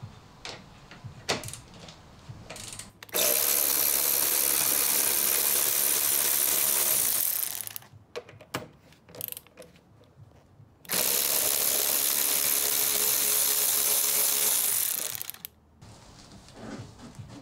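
ToolPRO 3/8-inch power ratchet wrench with a 10 mm socket, running twice for about four seconds each to spin out bolts, with small clicks of handling between runs.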